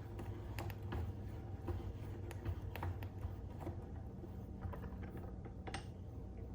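Irregular light clicks and taps, a few a second, over a low steady hum.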